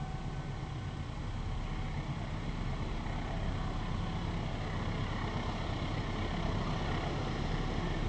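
Diesel locomotive's engine rumbling as it approaches, growing slowly louder.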